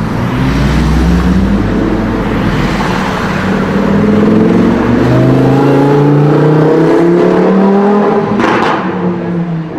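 Lamborghini Huracán Performante's naturally aspirated V10 revving hard as the car accelerates away, its pitch climbing in repeated rising sweeps and then held high.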